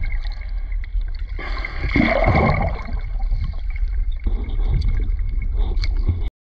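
Water gurgling and sloshing over a steady low rumble, with a louder surge about a second and a half in and a thin steady whine underneath. The sound cuts off suddenly near the end.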